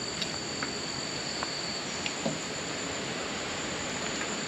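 Steady high-pitched chirring of insects, with a few faint soft clicks and plops as pieces of mutton on the bone are put by hand into a pot of water.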